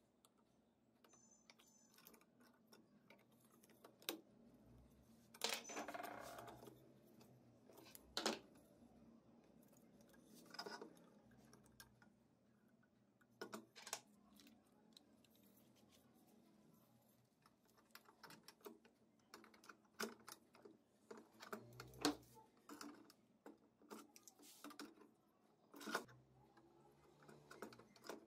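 Sparse, quiet clicks and taps of small hard objects being handled, with a brief scraping rustle about six seconds in.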